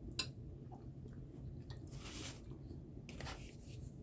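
A person chewing food, with a sharp mouth click a moment in and a couple of soft hissing breaths or smacks later on.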